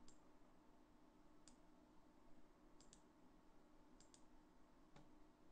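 Near silence with about seven faint computer mouse clicks, two pairs of them coming in quick succession like double-clicks.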